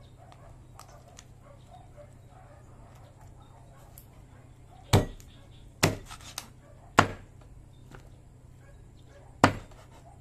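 A large cleaver-style knife chopping through chicken onto a plastic cutting board: four sharp chops in the second half, the first three about a second apart.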